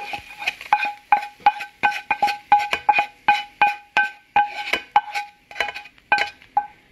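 Frying pan and wooden spatula knocking against a stainless steel mixing bowl as sauce is scraped out of the pan. The knocks come about three times a second, and each leaves the bowl ringing briefly at the same pitch.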